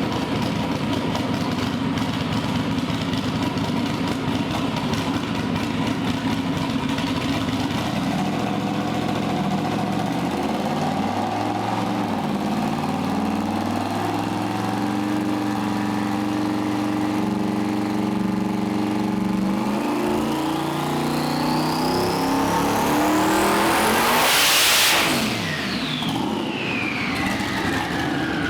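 Twin-turbo LS V8 running on a hub dyno, its engine speed climbing in steps under load. A rising whine builds with it to the loudest point about 25 seconds in, then the throttle comes off and the whine falls away.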